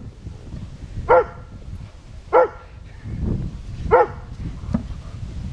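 Newfoundland dogs play-fighting, one giving three short, sharp barks a second or more apart. A low rough rumble comes just before the third bark.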